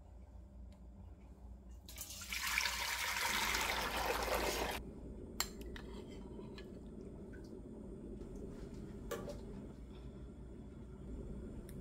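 Fermented sikhye (Korean rice punch) being poured into a stainless steel pot, a steady splashing pour lasting about three seconds, followed by a few light clicks.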